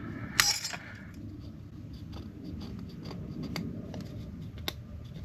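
Fingertip rubbing old gasket residue off the gasket surface of an outboard reed plate: a low, steady rubbing with a few light clicks, and a short sharp scuff about half a second in.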